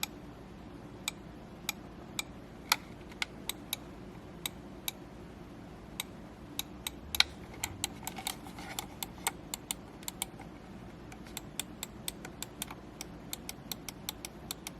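Side buttons of a Ninjutso Origin One X ergonomic gaming mouse being pressed, giving sharp single clicks at irregular spacing that come quicker in the last few seconds, over a faint steady hum.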